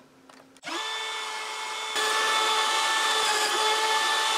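Makita cordless router switched on about a second in and running with a steady whine, getting louder about two seconds in as its bit bores into the wood.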